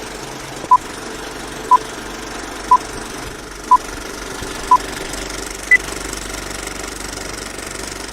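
A countdown of short electronic beeps, one a second, with the last beep higher-pitched, over a steady mechanical hum.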